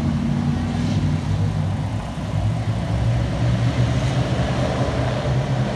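Race car engines running together on the track, a steady low engine drone without revving up or down.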